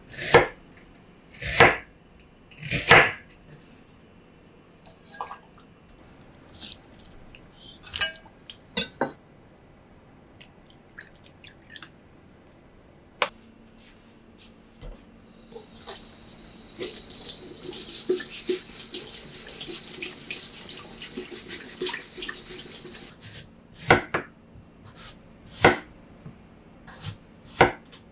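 Knife cuts through a root vegetable onto a wooden cutting board, three separate strokes. Then the kitchen faucet runs into a stainless steel sink for about six seconds. After that, single knife strokes cut through a sweet potato on the board, one every second or two.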